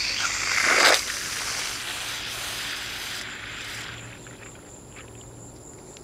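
Water from a garden hose spraying and running into a bird bath basin as it is rinsed out and refilled: a hiss that is strongest in the first second, then softer and fading out after about three to four seconds. A steady high insect trill can be heard underneath.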